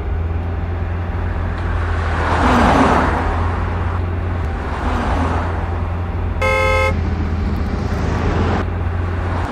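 A minivan driving past on a road: engine and tyre noise swelling and fading three times over a steady low hum, with one short car-horn toot a little past the middle.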